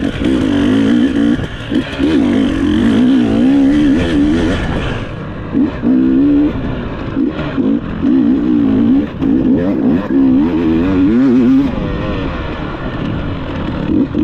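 Off-road dirt bike engine revving up and down in quick succession, with constant throttle changes and brief lifts off the gas, as the bike is ridden hard along a tight enduro trail.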